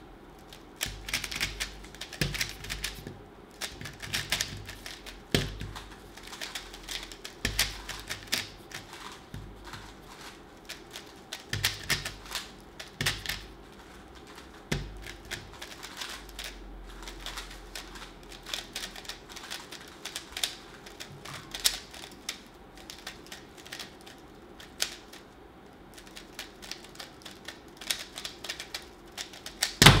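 Gan Air SM 3x3 speedcube turned rapidly one-handed: quick runs of plastic clicking and clacking as the layers snap round, with short pauses between runs of moves.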